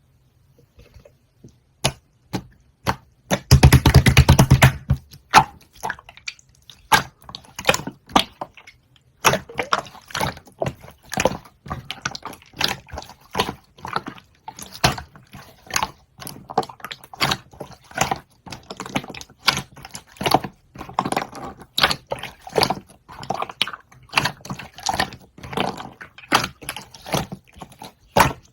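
Close-miked eating sounds of grape konjac jelly: quick, irregular wet clicks and squelches from the mouth, with a longer, louder stretch about four seconds in.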